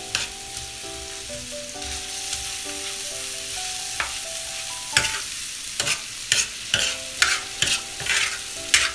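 Mutton liver and tomato masala sizzling steadily on a flat tawa griddle while the masala is fried down. A metal spoon scrapes and stirs it against the griddle, with the scrapes coming repeatedly from about four seconds in.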